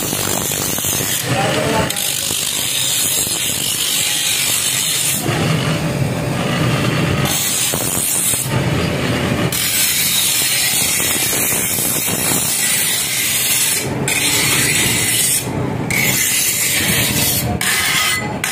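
Continuous rasping, ratcheting metal scraping from hand work on a forged sickle, going on without a break and changing texture every second or two.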